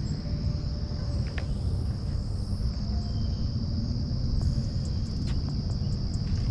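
Insects trilling in one steady high-pitched drone over a constant low rumble, with a few faint clicks.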